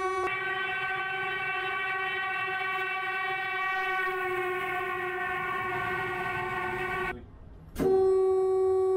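Train horn sounding one long, steady blast as a mourning tribute to crash victims. It breaks off about seven seconds in, and after a short gap and a click a second, louder blast begins at the same pitch.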